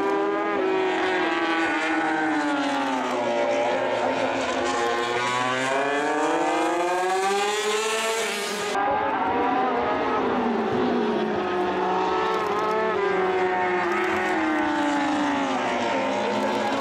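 Two Honda MotoGP race motorcycles running on track, their engines' pitch rising and falling several times as they accelerate and ease off through the corners, with an abrupt change in the sound about halfway through.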